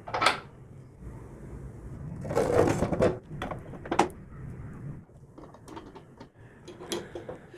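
Hands refitting a chop saw's abrasive cut-off wheel and metal flanges onto the spindle: scattered clicks and taps of metal parts, with a longer scraping rustle about two and a half seconds in.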